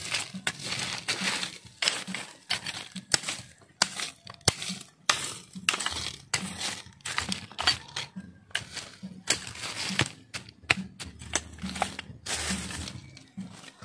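Machete blade chopping and scraping into dry soil and leaf litter, digging. A rapid, irregular run of crunching strikes that thins out near the end.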